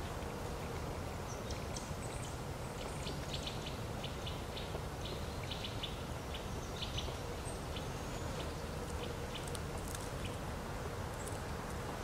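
Small birds giving short, high chips and ticks in irregular clusters over a steady low background rumble.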